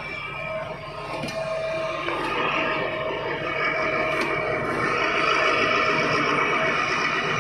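Hitachi Zaxis 350 excavator's diesel engine working under hydraulic load, getting louder over the first few seconds and then holding steady, with a few sharp clicks.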